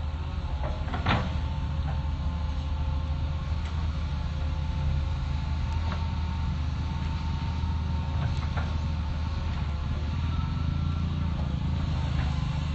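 Hitachi excavator's diesel engine running steadily, with a steady whine over it and occasional sharp metallic clanks, the loudest about a second in.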